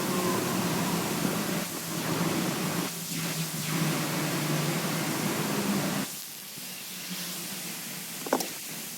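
Steady hiss of heavy rain falling, dropping to a quieter hiss about six seconds in, with one short sharp tap near the end.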